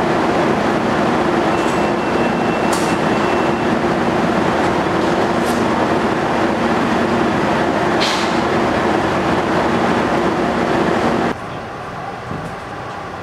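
Diesel engine of an EMD F59PHI locomotive running steadily while the train stands at the platform: a loud, even rumble with a steady hum and a couple of short hisses. About 11 seconds in it cuts abruptly to a quieter, steady rumble.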